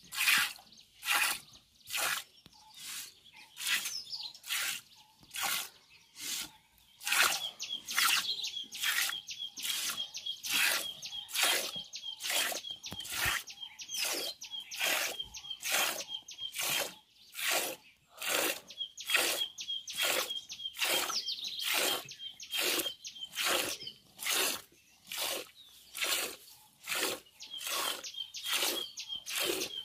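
Hand milking a cow: streams of milk squirt from the teats into a steel bowl as short hissing strokes, a little more than one a second in an even rhythm. From about seven seconds in there is also a faint, thin, high twittering.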